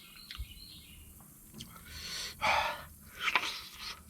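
A man drawing sharp, hissing breaths through his mouth, two loud ones in the second half, from the burn of Carolina Reaper and ghost pepper spice.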